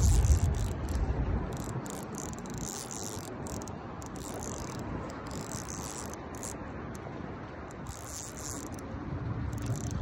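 Night insects chirping in a high, pulsing chorus that swells and fades about once a second. A low rumble is loudest at the start and dies away within the first second or two.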